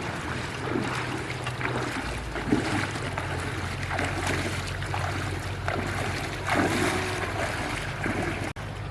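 Engine-driven water pump running steadily with a low hum under continuous rushing, splashing water.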